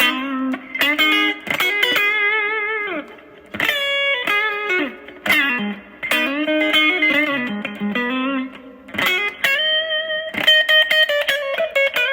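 Electric guitar played through a Yamaha THR5 V.2 small modelling amp, on a tone set up in THR Editor: single-note lead phrases of picked notes, some held with vibrato, several sliding down in pitch.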